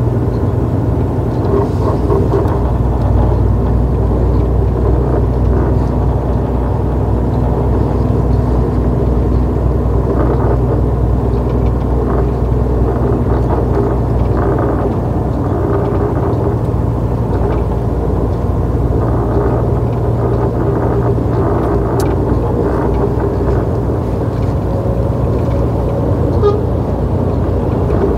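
DAF truck's diesel engine running steadily under way, with road noise.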